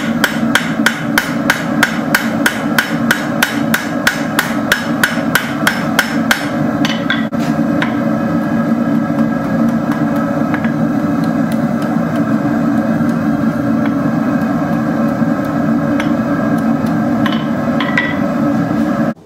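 Hammer striking hot steel on an anvil in a quick, even rhythm of about three blows a second, stopping after about six and a half seconds. A steady forge roar runs underneath throughout, with only a few faint taps after the hammering stops.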